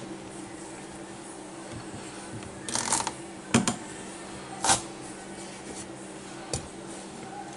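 A few brief scrapes and knocks, about four in all, from a knife working into a spaghetti squash's hard rind and the squash being handled on the countertop, over a steady low hum.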